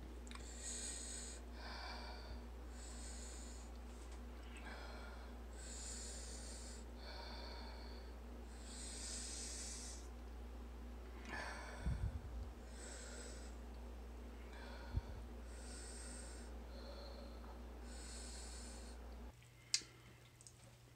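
Rapid, hissing breaths in and out through the mouth, about one a second, like someone cooling a mouth burned by hot habanero peppers. A low steady hum runs underneath and cuts off near the end, with a couple of soft handling thumps in the middle.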